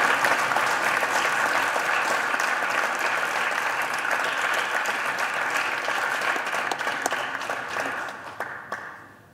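Applause: many people clapping, a dense patter of hand claps that dies away near the end.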